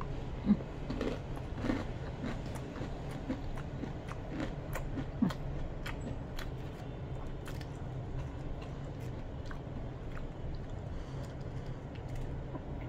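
Close-up chewing of a mouthful of rice and crispy fried chicken skin, a scatter of small crunches and wet mouth clicks.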